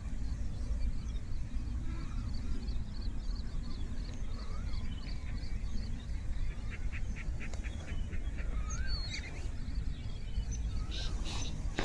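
Several birds chirping and calling: quick repeated high chirps, a rapid run of chirps a little past the middle, and a few short rising-and-falling whistled notes, over a steady low rumble.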